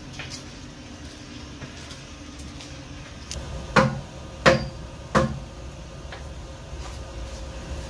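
Three loud knocks about two-thirds of a second apart, a staff struck on the floor, over a steady background hum.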